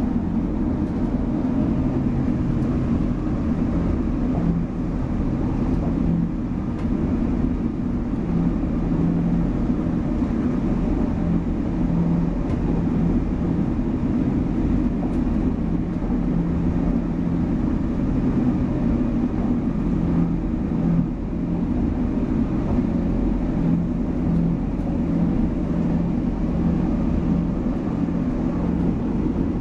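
Class 175 diesel multiple unit running at speed, heard from inside the carriage: a steady rumble of wheels on rail with a low engine hum that swells and fades.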